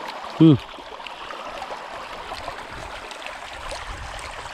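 Creek water running steadily over stones. A person's voice gives one short hum about half a second in.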